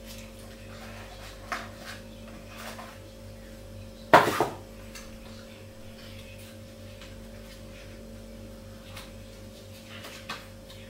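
Earphone packaging and a small plastic box being handled: a few light clicks and rustles, with one sharp knock about four seconds in, the loudest sound. A steady low hum runs underneath.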